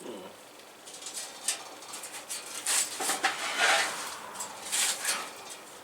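Irregular scraping, rustling and light clicking of metal parts and tools being handled, busiest in the middle of the stretch.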